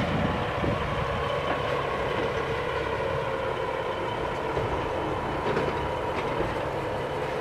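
Diesel rail maintenance motor car running steadily as it rolls slowly along the track, its engine drone joined by a few faint clicks from the wheels on the rails.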